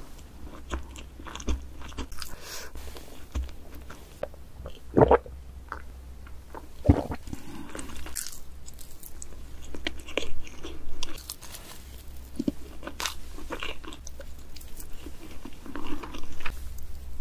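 Close-miked chewing of a mouthful of chocolate Christmas cake: irregular mouth clicks and soft chewing strokes, with two louder moments about five and seven seconds in.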